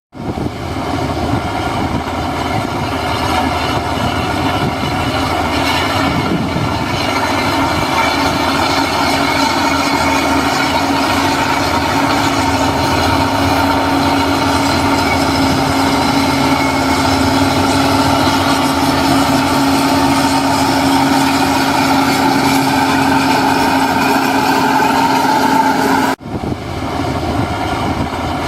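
Heavy diesel earthmoving machinery running steadily under work, with a constant engine hum. The sound breaks off sharply for a moment about 26 seconds in, then carries on.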